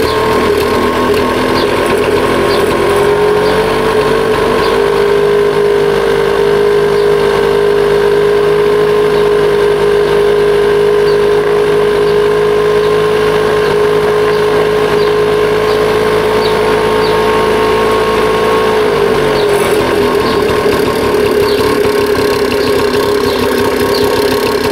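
Keeway Hurricane 50 scooter's two-stroke engine idling fast and steady while its carburettor is adjusted. The engine speed rises slightly about three to four seconds in and eases back down near the end as the mixture screw is turned.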